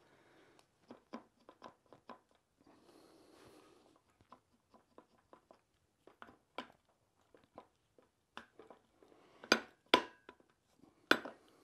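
Small metal clicks and taps of hand tools working on a Porsche 356 transaxle's aluminium case and cover plate. Near the end come three sharp metal clanks that ring briefly, as a steel bar knocks against the case.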